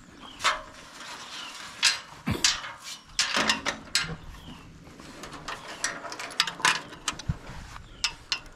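Steel corral gate panels and a gate's chain latch being handled: a string of irregular sharp metallic knocks, clinks and rattles.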